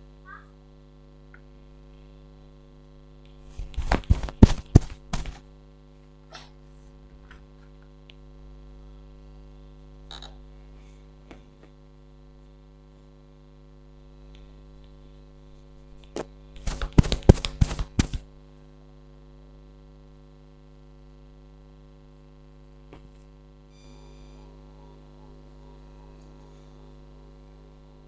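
Two bursts of quick, sharp hits from a head massage, each lasting about a second and a half, one about four seconds in and one near the middle, over a steady electrical hum.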